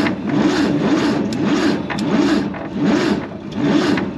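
1948 Chevy 3100's 216 inline-six cranking over on the starter in a steady, rhythmic chug, with a few sharp snaps. It is catching only every once in a while instead of firing steadily, a sign of ignition trouble at the distributor points.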